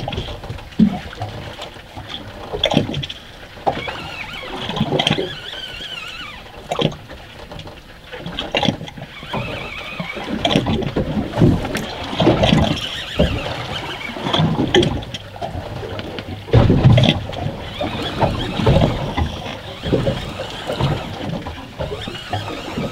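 Water lapping and slapping against a small boat's hull in uneven bursts as it drifts.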